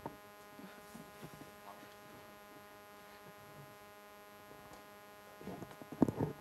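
Steady electrical mains hum from the microphone and sound system, under faint, indistinct voices. Near the end a voice comes in louder.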